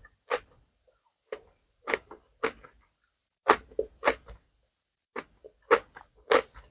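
Close-miked chewing of jajangmyeon noodles and fried squid: a run of short, wet, crunchy mouth sounds, about ten in all, at an uneven pace with brief pauses between them.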